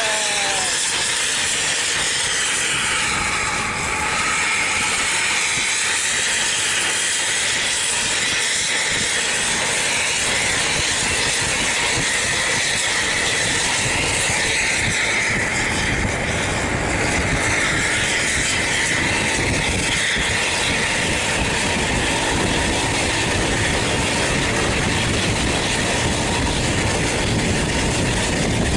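Steady, loud rushing hiss of road travel, with a low rumble that grows stronger from about halfway through.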